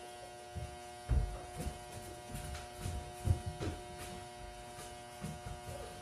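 A steady electrical buzz runs throughout, with a handful of soft, irregular low thumps over it, the loudest about a second in and a little past three seconds in. The thumps fit a large dog and a person moving across a wooden floor and rugs.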